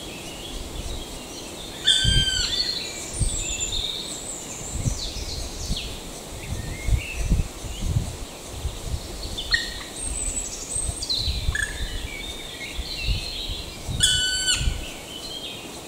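Black woodpecker calling: a short call about two seconds in and again near the end, over other small birds singing.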